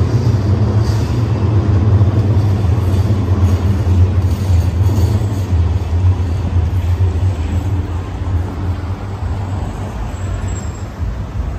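City street traffic: passing cars with a loud, deep, steady engine rumble that grows fainter over the last few seconds.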